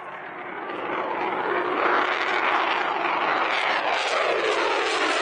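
F-22 Raptor's twin turbofan engines on a low pass overhead just after takeoff: steady jet noise that builds over the first two seconds, then stays loud with a falling, sweeping tone as the fighter goes by.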